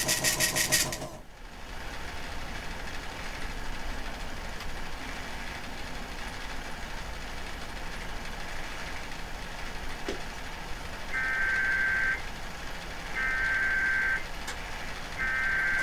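Emergency Alert System SAME header: three one-second bursts of buzzy digital data tones a second apart, the code that opens an EAS alert, over steady radio hiss. A loud buzzing burst of the same data kind cuts off about a second in.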